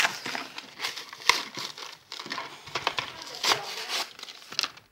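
Clear plastic blister packaging crinkling and crackling in irregular bursts as hands work at it to open the toy package, with a sharp snap about a second in.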